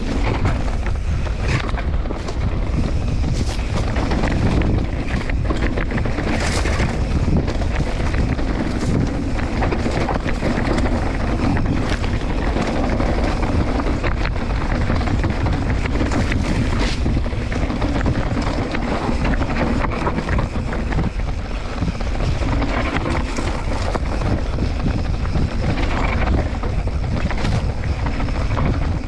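Mountain bike riding downhill on a dry dirt and rock trail: wind buffeting the camera's microphone and a steady tyre rumble, broken by frequent short clatters and knocks as the bike jolts over rough ground.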